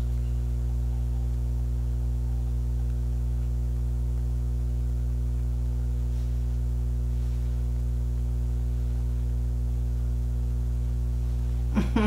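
A steady low hum, a constant set of deep tones that does not change.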